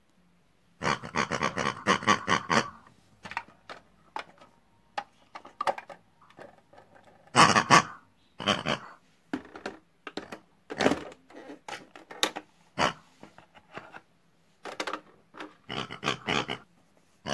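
Pig-like grunts and squeals in short, irregular bursts, voicing the toy pig characters: a longer run of them about a second in, then scattered single grunts, the loudest a little before halfway.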